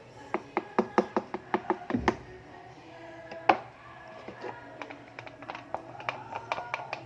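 Quick run of sharp taps and knocks from mixing the slime, about five a second at first, with one louder knock midway and then lighter, scattered taps.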